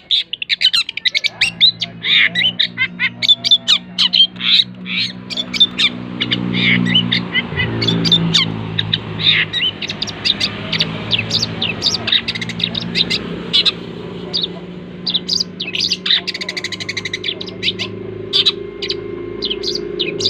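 A shrike calling in fast runs of short, harsh chattering and squawking notes, an unusual call for this bird. A steady low hum sits underneath.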